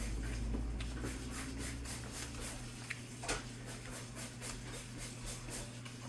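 Restaurant background: a steady low hum with a patter of small light clicks and clatter, and one sharper click about three seconds in.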